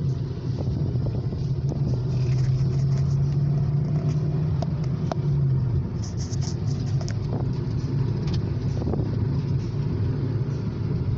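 2012 Hyundai Accent's engine pulling under load on an uphill climb, heard from inside the moving car: a steady low drone that eases off about six seconds in, with scattered light clicks.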